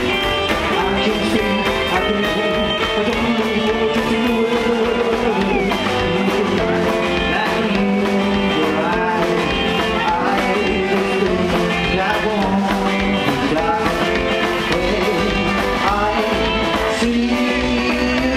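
Live rock and roll band playing, with two electric guitars, an upright double bass and a drum kit, and a voice at the microphone.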